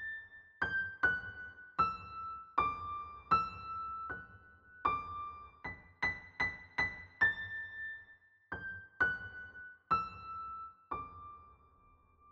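Background music: a slow solo piano melody of single notes, each struck and left to die away, about one to two notes a second, the last note held and ringing near the end.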